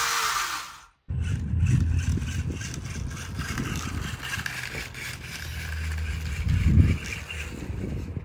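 Small electric RC drift car with traction control switched on, driving on a wet road: its motor and tyres sound over a low, uneven rumble. About a second in, a higher hiss stops abruptly.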